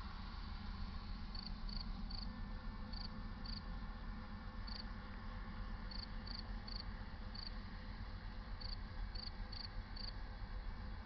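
Cricket chirping: short high chirps at uneven intervals, over a steady low rumble.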